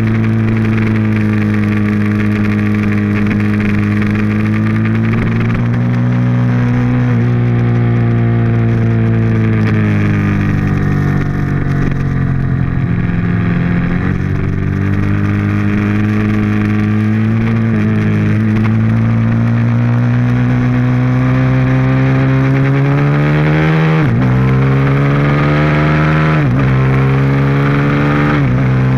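Ducati 1098S's L-twin engine under hard track riding, heard from on board. The pitch sags and climbs with the throttle through the corners, and near the end it twice drops sharply and climbs again as the rider shifts up under acceleration.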